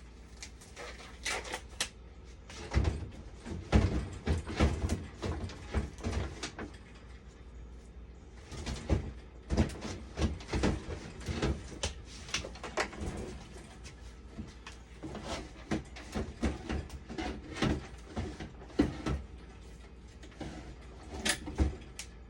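Irregular clicks, taps and knocks of tools and parts being handled during repair work on a dialysis machine, over a faint steady hum, with a quieter stretch about a third of the way through.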